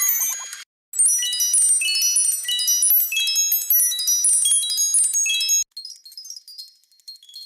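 Old emergency alert audio played at five times speed: a fast run of short, high-pitched electronic tones jumping between many pitches. It breaks off briefly near the start and stops about five and a half seconds in, leaving fainter high tones.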